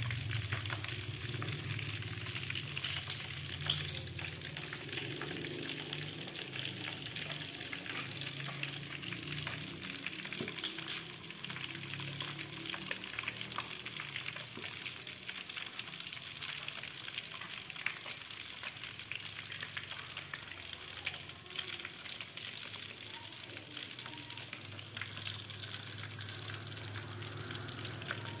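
Flour-breaded chicken pieces deep-frying in hot oil in a wok: a steady crackling sizzle. A couple of sharp clicks come a few seconds in, and another about eleven seconds in.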